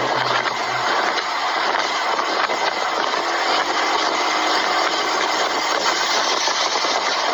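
An engine running steadily under a dense, even rushing noise.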